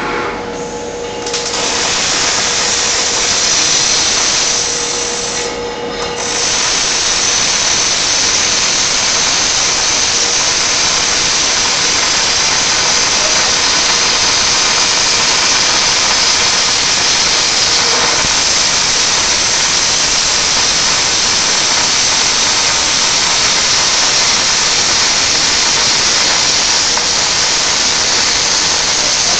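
Panasonic welding robot's MIG arc welding: a steady, loud hiss and crackle. It starts about a second and a half in, breaks off briefly around six seconds, then runs on unbroken.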